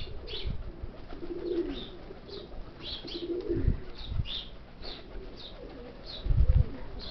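Domestic pigeons cooing, with a small bird chirping over and over in short high notes. Low rumbles of wind on the microphone come through, the loudest about six seconds in.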